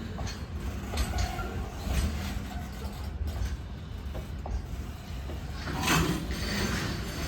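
Freight train cars rolling past on the track: a steady low rumble with scattered clanks and knocks, swelling briefly about six seconds in.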